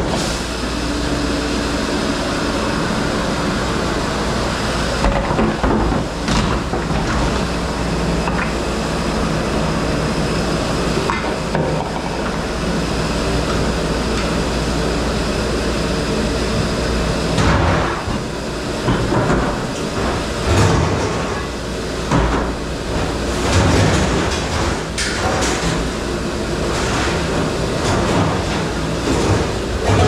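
Commercial dish room noise: a dish machine running steadily, with dishes and racks clattering and knocking, more often from about halfway in.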